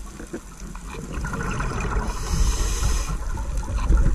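Underwater sound picked up by a camera below the surface: a crackling low rumble of moving water that grows louder toward the end, with a hissing rush of bubbles from about one and a half to three seconds in.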